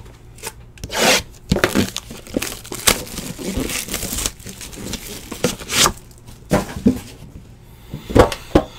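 Hands rubbing, scraping and turning a sealed cardboard trading-card box: irregular short scratchy strokes with a few sharp knocks.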